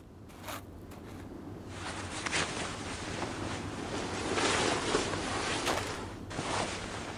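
Outdoor wind noise that fades in and builds, broken by several brief crunching bursts.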